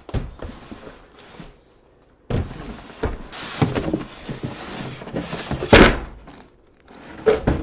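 Cardboard packaging being handled and pulled open: a knock, then rustling and scraping with thuds, loudest about six seconds in, and a couple more knocks near the end.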